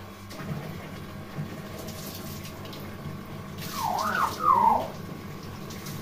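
Hill myna giving one loud call about four seconds in: a short harsh rasp, then swooping whistled notes that rise and fall for about a second. A steady background hiss runs under it.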